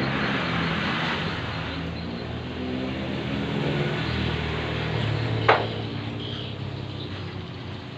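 A steady low engine hum with birds chirping, and a single sharp metallic knock about five and a half seconds in, as of a tool or part struck during engine reassembly.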